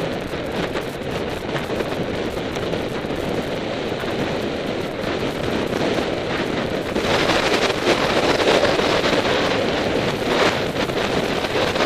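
Wind rushing over the microphone of a camera riding along on a moving road bike, a steady noise that gets louder about seven seconds in.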